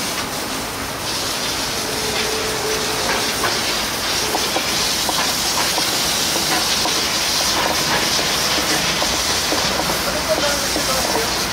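Steady hiss of hot food cooking, with a few small clicks and crackles; it grows a little about a second in.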